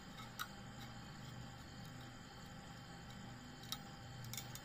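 Quiet room tone with a low steady hum, broken by a few faint ticks: one about half a second in and two near the end.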